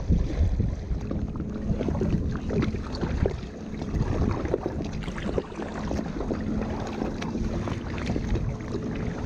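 Kayak paddling: water splashing and dripping off the paddle blades and slapping against the hull in many small irregular splashes, with wind on the microphone. A faint low steady hum runs under it for much of the time.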